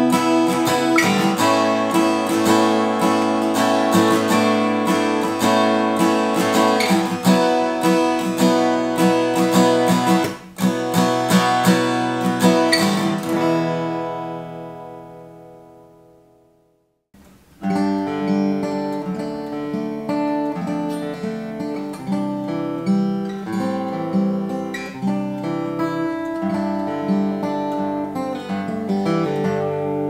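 Cort Gold A8K acoustic guitar being played, chords strummed and picked. About fourteen seconds in a final chord rings and dies away to a brief silence, and then the playing starts again, quieter.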